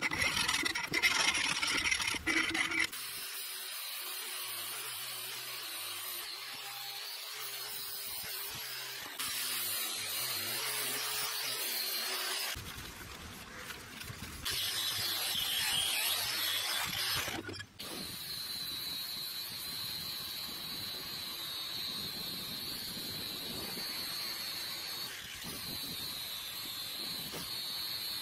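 Angle grinder running against a steel sword blade, the sound changing abruptly several times between cut-together clips; from about 18 seconds in a steady high-pitched whine.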